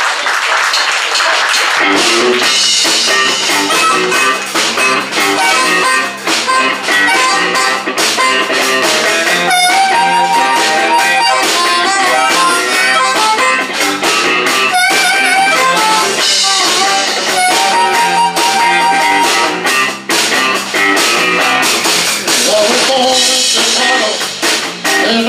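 Live electric blues band playing, with electric guitar, bass and drum kit, and an amplified harmonica cupped against a vocal microphone playing long held notes over the band. The band comes in about two seconds in.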